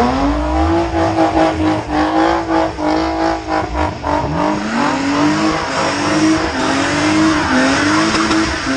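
A BMW E36 325i's straight-six engine is held at high revs in a burnout, its pitch dipping and climbing again over and over, with the rear tyres squealing as they spin on the wet road.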